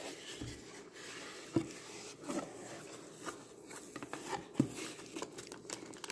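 Small cardboard box being handled: soft rustling and a few light taps as its lid is opened and the foam lining inside is lifted.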